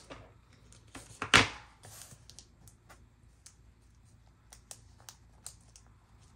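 Hands handling a Velcro strip and a bag: scattered small clicks and taps, with one louder thump and scrape about a second and a half in.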